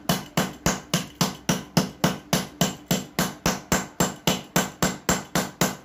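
Hammer blows striking a Type-C phone charger on a tile floor, in a fast, steady rhythm of about three to four hits a second.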